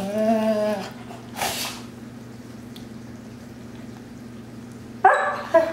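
American Akitas' vocal play: a drawn-out, pitched grumbling play growl for about a second, then a short breathy huff. After a few seconds of lull, a loud vocal outburst starts again about five seconds in.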